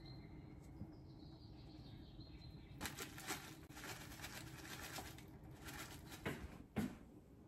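A plastic bag of seasoned seaweed flakes rustles as the flakes are shaken out of it, in a run of quick crackling rustles for a few seconds. Two soft knocks follow near the end.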